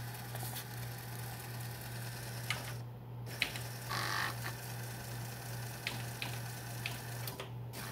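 Uncovered 5.25-inch floppy disk drive reading a bare disk taken out of its jacket: a steady motor hum with scattered light ticks from the head mechanism, and a short hiss about four seconds in.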